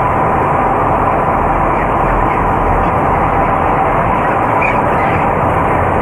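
Steady, loud running of the large cone exhaust fans ventilating an enclosed broiler shed, an unbroken drone with a faint steady hum in it.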